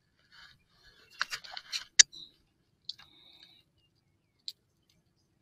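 Close handling of a spinning rod and reel: scattered clicks and rattles, one sharp click about two seconds in, then a brief high-pitched whir and a last click.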